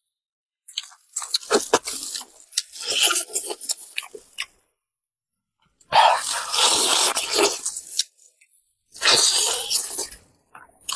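Close-miked mukbang eating sounds: chewing braised fish head and glass noodles, in three bursts separated by silent gaps.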